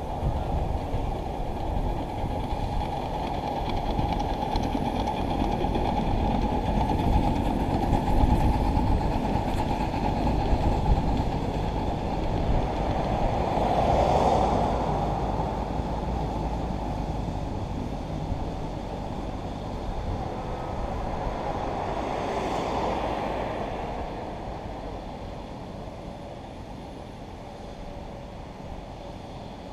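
A ride-on miniature railway train rolling along the track, its wheels running on the rails. The sound swells about 14 seconds in and again around 22 seconds, then fades away.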